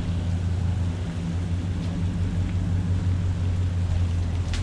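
A steady low rumble without a break.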